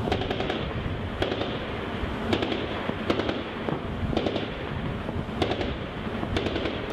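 Shipboard guns firing single heavy shots at irregular intervals, about eight in all, roughly one a second, over a steady rushing background.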